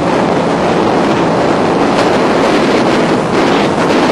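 Yamaha WaveRunner personal watercraft running at speed, its engine noise mixed with a steady rush of water and wind on the microphone.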